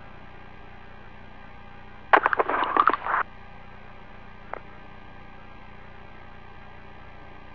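Steady hiss and hum of a radio intercom line. About two seconds in, a crackling burst of about a second cuts across it, and a single click follows a second later.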